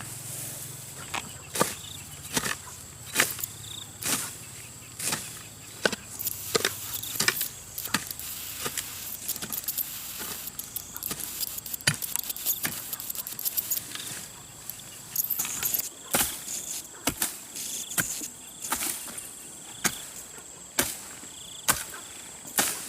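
A hand tool's blade chopping into grass and soil in repeated sharp strokes, roughly one a second and unevenly spaced.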